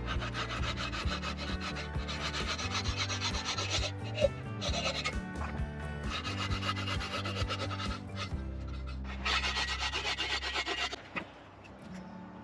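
Rough rasping of a tool working wood in four long stretches that stop about 11 seconds in, over background music with steady bass notes.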